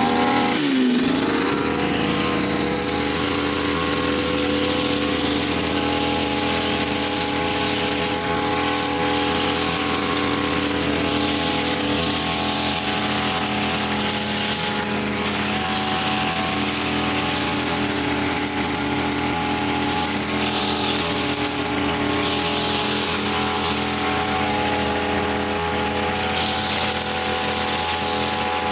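Brush cutter engine winding down from high revs about a second in, then running steadily at a lower, even speed.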